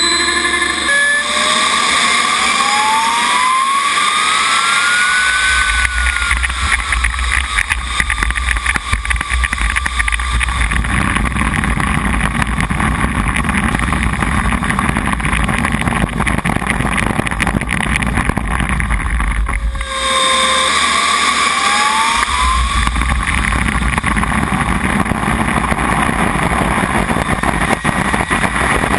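R/C jet's model turbine engine whining, its pitch rising over a few seconds as it spools up and then running steadily, with heavy wind buffeting and rumble on the wing-mounted microphone as the jet rolls. After a sudden break about twenty seconds in, the whine climbs again as the throttle opens for the take-off run.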